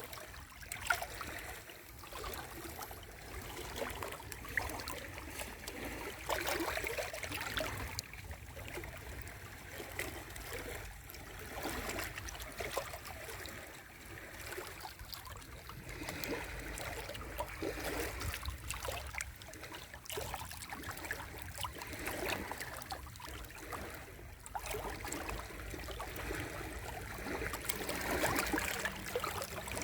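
Small sea waves washing and lapping at the shore, a continuous fizzing, trickling wash that swells and eases every few seconds.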